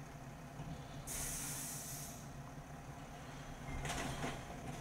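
Recycling truck's diesel engine running steadily at a standstill. About a second in, a loud burst of hissing air lasts about a second, typical of an air-brake release. Near the end comes a shorter, rougher burst of noise.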